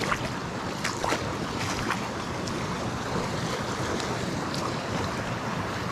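Steady rushing of river rapids, with a few short splashes or knocks in the first two seconds.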